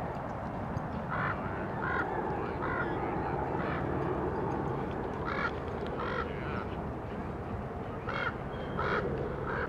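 About ten short, harsh animal calls, spaced irregularly, over a steady low background noise.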